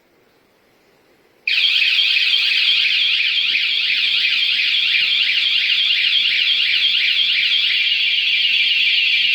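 Mengshen wireless anti-theft bike alarm (rated 113 dB) sounding its siren: a loud, high-pitched electronic wail that warbles rapidly up and down. It starts suddenly about a second and a half in and keeps going.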